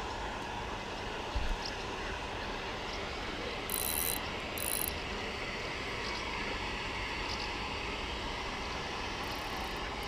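Tsurinoya FS800 spinning reel being cranked steadily, winding in line, with two short hissing bursts about four seconds in and a fainter one near the end.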